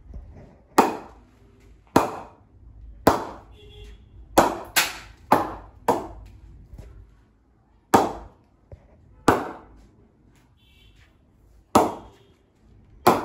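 Cricket ball bounced repeatedly off the face of a grade 2 English willow cricket bat in a ping test: about ten sharp knocks at uneven intervals, each with a short ringing tail. The ball comes off with a good ping, the sign of a lively, well-responding blade.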